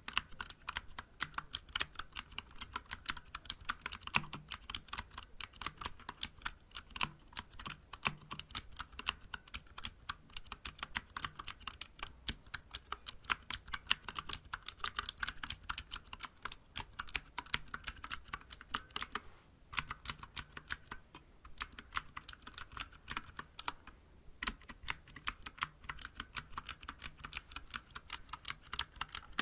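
Steady, fast typing on a Vortex Vibe compact aluminium-cased mechanical keyboard with Cherry MX Blue clicky switches and SA-profile keycaps: a dense run of sharp key clicks, broken by two short pauses about two-thirds of the way through.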